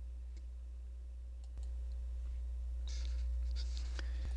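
Quiet background: a steady low hum with a few faint clicks.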